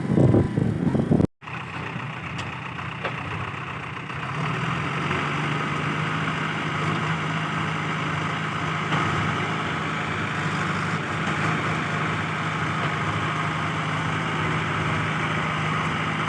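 Heavy diesel engine running steadily at a low, even pitch after an abrupt cut about a second in; its hum settles into a steady drone about four seconds in.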